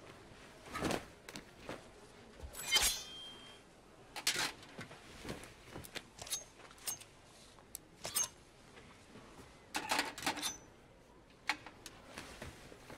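Quiet room tone with scattered soft knocks and rustles of movement and a few small, brief ringing clinks of metal or glass, the loudest about three seconds in.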